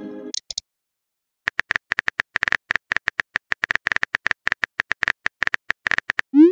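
Texting-app keyboard click sounds: a quick, irregular run of taps as a message is typed, starting about a second and a half in. Just before the end a rising swoosh begins as the message is sent.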